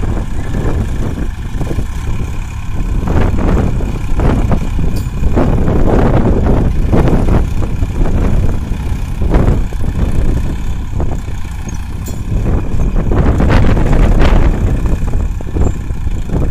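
Sonalika mini tractor's diesel engine running under load while pulling a nine-tine cultivator, its level swelling and dipping.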